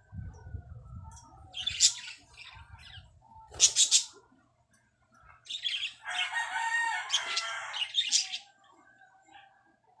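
Caged budgerigars chirping: sharp high chirps about two and four seconds in, then a couple of seconds of busier chattering calls.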